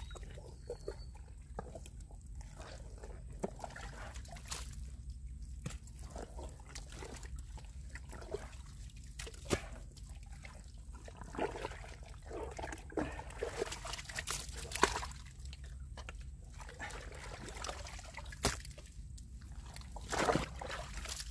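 Wet mud squelching, sucking and sloshing in irregular bursts as hands dig and scoop in a deep, water-logged mud hole.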